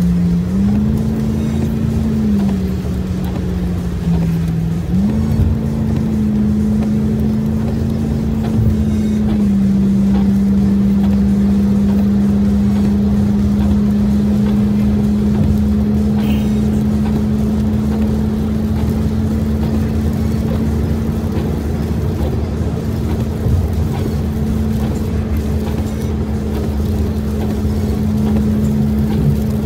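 Vehicle cabin noise while driving on a wet highway: a steady low rumble of engine and tyres with an engine drone. The drone shifts up and down in pitch a few times in the first ten seconds, then holds steady.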